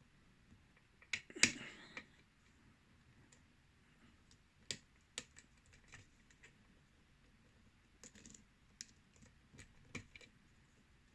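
Lock pick and tension wrench working the pins of a six-pin Yale-style pin-tumbler lock held in a false set: scattered small clicks and scrapes, with a louder rattling cluster about a second in.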